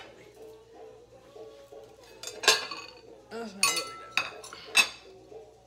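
Dishes and cutlery clinking against each other as they are loaded into a dishwasher: a quiet start, then several sharp clinks in the second half, one ringing briefly.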